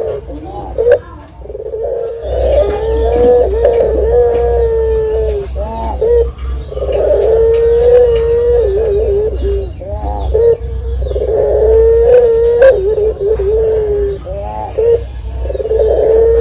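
Collared dove (puter) cooing: long drawn-out coos held on one slightly wavering note for two to three seconds each, about four in a row, with short warbling notes between them.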